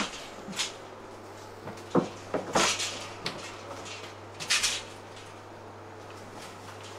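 Plastic pet carrier knocking and scraping as it is pushed into a stainless-steel animal cage: a string of sharp clunks and rattles in the first five seconds, then quieter.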